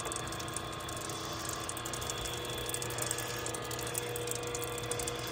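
A New Tech Machinery 6-inch seamless gutter machine running, its chain-driven rollers turning: a steady hum with a fast, light ticking. The drive chains are freshly oiled with gear oil.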